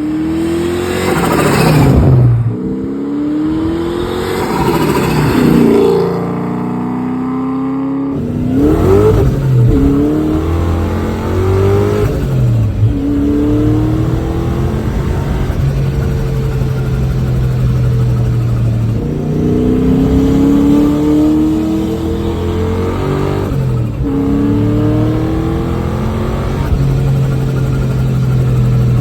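Supercharged V8 of a 2001 Steeda Q400 Mustang accelerating hard through the gears, its pitch rising over and over in repeated pulls. At several of the shifts the blow-off valve vents with a brief whoosh.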